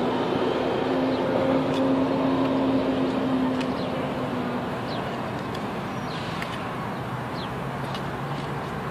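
A steady engine drone with a low hum that drops in pitch and eases off a little about halfway through. Brief high chirps sound over it.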